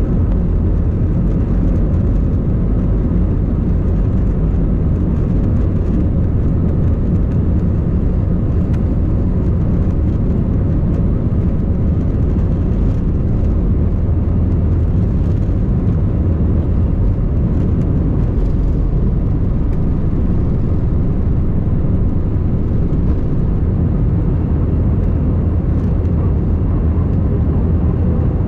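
Airbus A321-211's CFM56 turbofan engines at takeoff thrust, heard inside the cabin from a window seat over the wing: a loud, steady low drone through the end of the takeoff run, liftoff and initial climb.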